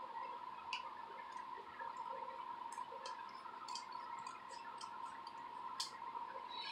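Kitchen scissors snipping through a yellow padded mailer: a run of short crisp cuts, coming quicker in the middle, the loudest a little before the end, over a faint steady hum.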